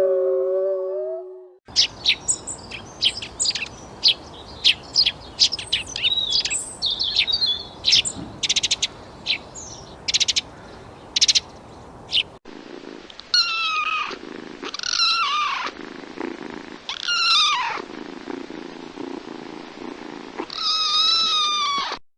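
A run of short, sharp high chirps and clicks, then a kitten mewing four times, each mew high and falling in pitch.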